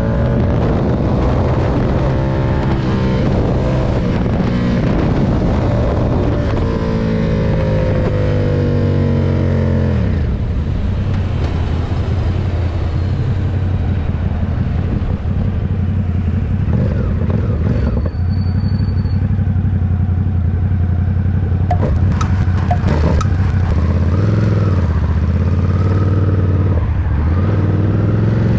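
Ducati SuperSport 939's 937 cc L-twin engine running under way, its pitch rising and falling through the first ten seconds as it accelerates and shifts, then holding steadier. A short high beep comes about two-thirds in, and a few sharp clicks a little after.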